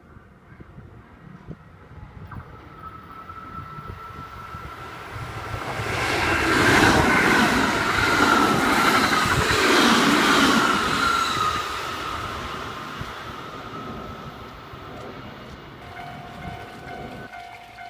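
Kintetsu Osaka Line electric train passing through a level crossing. It grows louder over the first several seconds and is loudest about six to eleven seconds in, with rhythmic wheel clicks on the rail joints, then fades as it moves away. A steady tone starts near the end.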